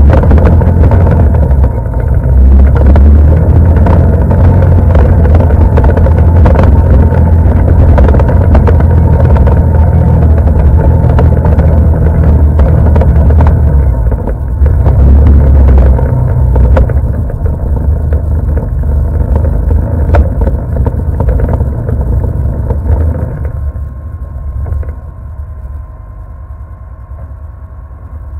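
ATV engine running under way over a bumpy snow trail, a loud low drone with frequent knocks and rattles. About 23 seconds in it drops off and settles to a quieter, steady idle.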